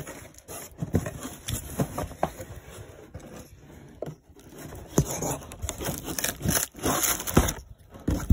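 Cardboard shipping box being opened by hand: irregular scraping and rubbing of cardboard flaps, with occasional sharp knocks.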